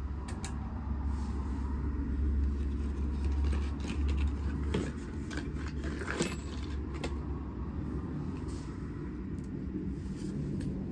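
Small metallic clicks and taps as the bicycle's front caliper brake and its pad holder are handled and adjusted by hand, over a steady low rumble that swells a few seconds in.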